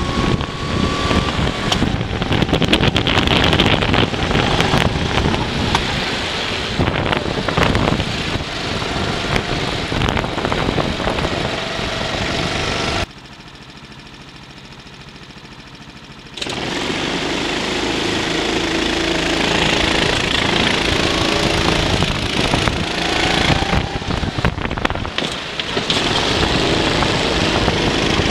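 Go-kart engine running at racing speed with wind buffeting the microphone, its pitch rising and falling as the kart accelerates and lifts off through the corners. About 13 seconds in the sound drops sharply to a low steady hum for about three seconds, then the loud engine sound returns.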